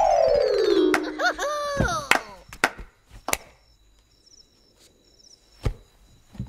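Comedy-film sound effects: a whistle-like tone sliding down to a low note in the first second, then a few short warbling tones and a string of sharp knocks spaced out over the next few seconds.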